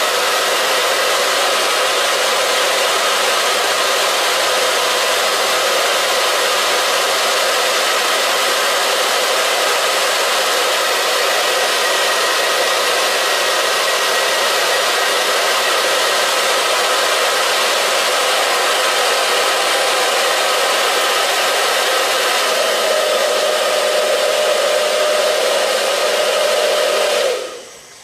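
Hair dryer running steadily on high heat, drawing about 1500 watts. A steady higher tone joins in about 22 seconds in, and the dryer cuts off suddenly about a second before the end.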